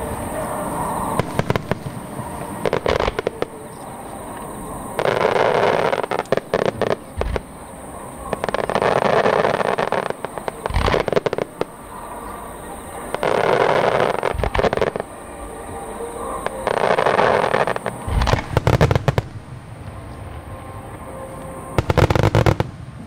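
Aerial firework shells bursting in a display: deep booms every few seconds, with four separate spells of dense crackling that each last a second or two.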